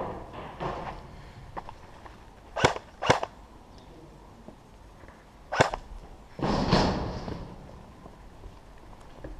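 Airsoft guns firing single sharp cracks: two about half a second apart a little before halfway, and another just past halfway. Soon after comes a longer scuffing noise, with light footsteps and knocks between the shots.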